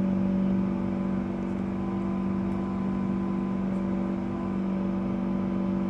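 A building's newly installed chiller running at street level: a steady drone with several low hum tones over an even rushing noise, unchanging throughout. It is called deafening, and residents believe it exceeds the permitted decibel level.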